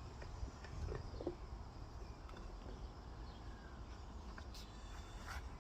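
Faint handling noise: a few light clicks and knocks over a low steady hum, with two brief sharper rustles near the end.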